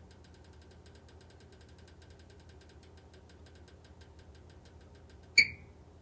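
Kaiyi (HELLER) electric heater making an abnormal noise: a fast, faint ticking, about ten ticks a second, over a low hum. Near the end comes a single loud, sharp metallic click that rings briefly, and the ticking stops after it.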